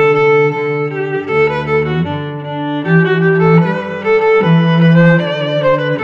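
Background music of bowed strings holding long notes that change every second or so.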